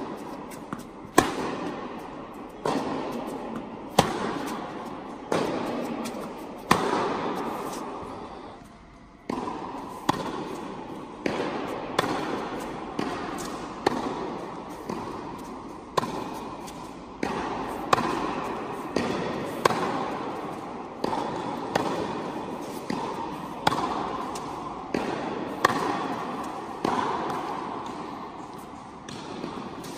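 Tennis ball struck back and forth with rackets and bouncing on an indoor hard court in a steady rally, each hit echoing through the hall, with a short break about nine seconds in.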